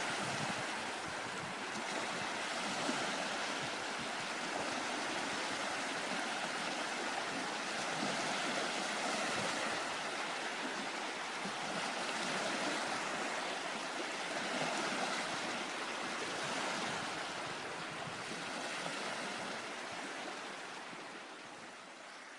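Small waves lapping and breaking on a sandy sea shore, a steady wash of surf that fades away near the end.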